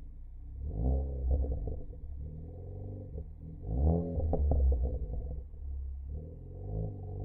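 Ford Focus ST engine and exhaust idling, then revved three times, the third blip smaller; as the revs fall, the crackle tune sets off sharp pops and crackles on the overrun, most of them after the second and biggest rev.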